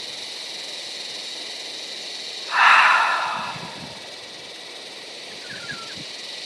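A person's long, audible out-breath through the mouth, a strong whoosh that starts about two and a half seconds in and fades away over about a second. It is a deep exhalation in a qigong breathing exercise.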